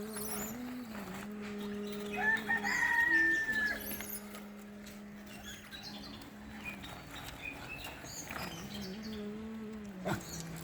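A rooster crows once, a held call about a second and a half long starting about two seconds in, over a steady low drone.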